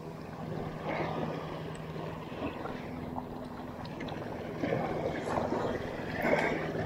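Shallow sea water washing and gurgling around rocks, with louder splashy surges about five and six seconds in, over a faint steady low hum.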